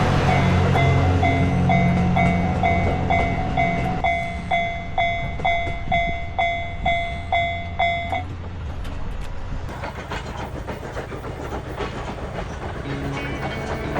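Level-crossing warning bell ringing in repeated electronic dings, about two a second, over the low running rumble of a passing steam-hauled train. The bell stops about eight seconds in, leaving the train's running noise.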